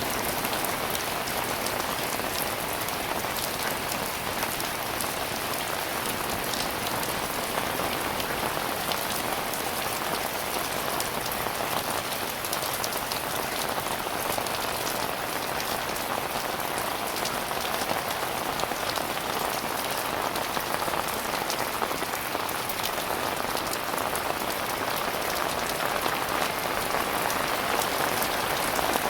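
Heavy rain falling steadily, a dense even hiss of drops with fine pattering ticks on hard surfaces.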